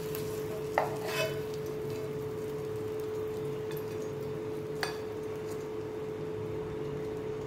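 A steel spoon clinking against a frying pan and a plate as a fried fish is slid off the pan and arranged: a few short clinks about a second in and again near five seconds. Under them runs a steady hum with a faint hiss.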